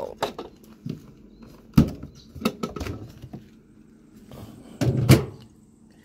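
Waeco portable camping fridge's plastic lid unlatched and opened, then a series of clicks, knocks and rattles as a glass water bottle is taken out, the loudest about a second before the end.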